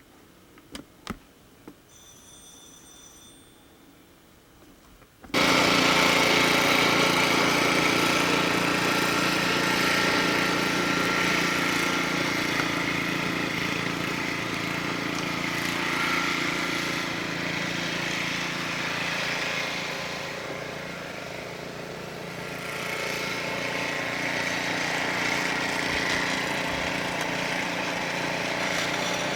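A few faint clicks, then about five seconds in a snowblower's small gasoline engine comes in suddenly and runs steadily.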